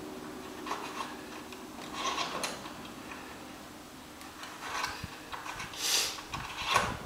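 Short breathy bursts of a person breathing hard, a few seconds apart, with faint rubbing of a wrench turning a spark plug into the engine's cylinder head by hand.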